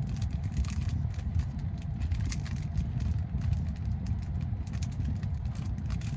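Foil wrapper of a trading-card pack crinkling as it is worked open by hand, a quick run of small crackles, over a steady low rumble.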